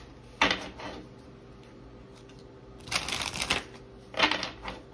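A deck of oracle cards being shuffled by hand in three short bursts, as the next card is drawn.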